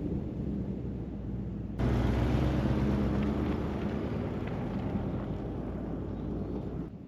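Pickup truck's engine running as it drives a dirt trail, a steady low rumble. The level jumps up suddenly about two seconds in and drops off sharply near the end.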